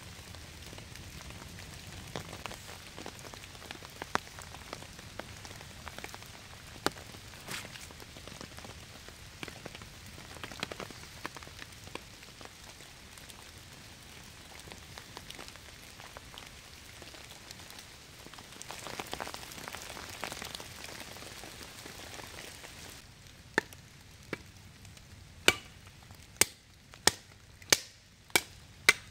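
Steady rain with scattered crackles from a wood campfire. In the last few seconds this gives way to a run of sharp hatchet chops on a stick of wood, more than one a second.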